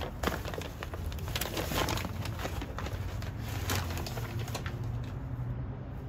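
Paper bag rustling and crinkling, with light knocks, as seed potatoes are taken out by a gloved hand. The rustling thins out near the end, over a steady low background hum.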